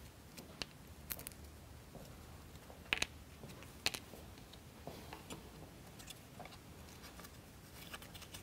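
Faint clicks and taps of small plywood model-kit parts being handled and fitted, with two sharper clicks about three and four seconds in.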